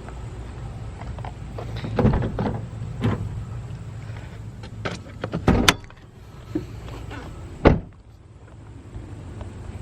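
A string of knocks and clunks, the loudest two in the second half, over a steady low hum.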